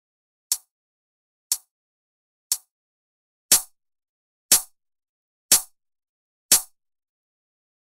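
Single hi-hat hits, one a second, seven in all. The first three are dry. The last four run through a UAD Studer A800 tape-machine emulation plugin and sound louder and fuller, with a longer decay.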